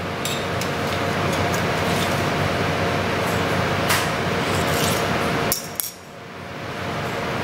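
A few light metallic clicks and taps as a metal ring mold is handled and set on a slate plate, over a steady noisy background hum. The background dips briefly about six seconds in.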